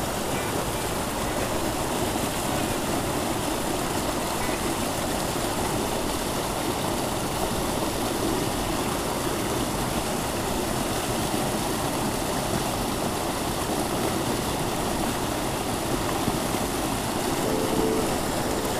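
Steady rush of a fast, high-gradient mountain stream tumbling over boulders.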